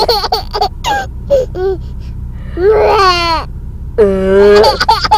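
One-year-old baby laughing in short gasping giggles, with a high squeal in the middle. About four seconds in comes a woman's drawn-out burp, and the baby's laughter follows it.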